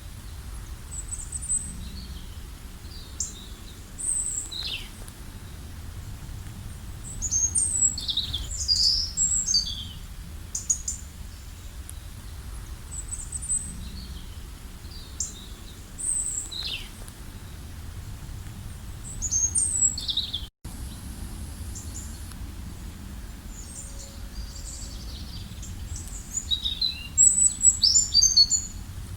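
Several birds chirping and singing in short, quick calls, busiest about seven to ten seconds in, around nineteen to twenty seconds, and again near the end, over a steady low background rumble. The sound drops out for an instant about twenty seconds in.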